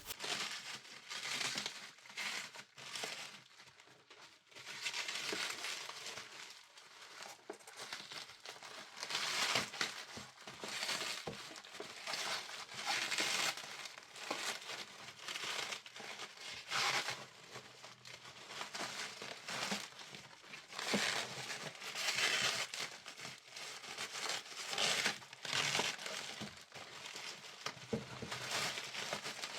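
Packaging being crinkled and pulled at by hand in repeated bursts while a tightly wrapped parcel is worked open with difficulty.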